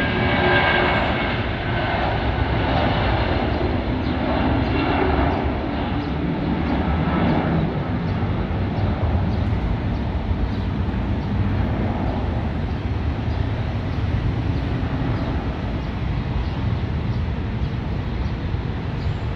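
Boeing 757-200 freighter's twin turbofan jet engines at takeoff thrust: a steady, loud jet roar as the airliner lifts off and climbs away.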